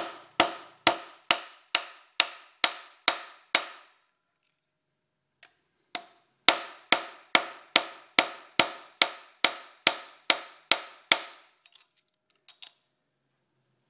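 Hammer blows on a driver tool, tapping a new pilot bushing into the rear of a small-block Chevy 350 crankshaft: sharp, evenly paced strikes about two a second. A run of about nine, a pause of a couple of seconds, then about a dozen more.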